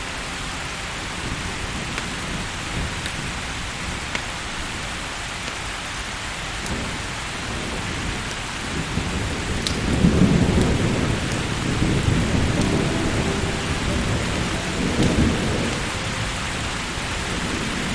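Steady rain falling, with a long roll of thunder that rumbles in about halfway through, swells in waves and dies away near the end.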